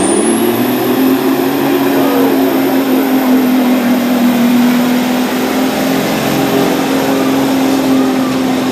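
Semi truck's diesel engine running flat out as it drags a weight sled, a steady heavy drone with a high whistle held over it.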